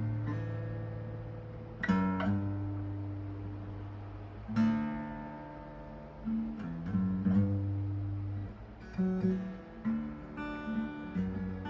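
Acoustic guitar music: slow strummed chords, each left to ring before the next.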